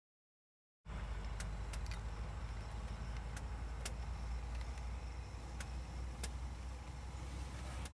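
Low steady rumble on the camera microphone with about seven sharp clicks scattered through it: wind and handling noise. It starts abruptly just under a second in.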